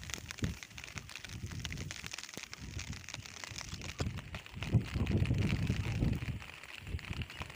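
Rustling and crackling of leafy ground plants being handled and pushed through, over low wind rumble on the microphone that grows louder a little past halfway.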